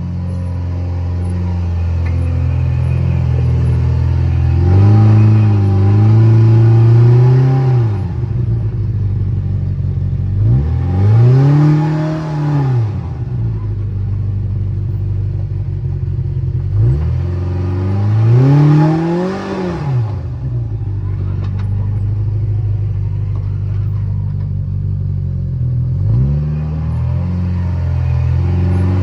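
Off-road vehicle engine running low and steady, revved up several times with the pitch rising and falling back, about four times over the stretch, as in slow rock crawling.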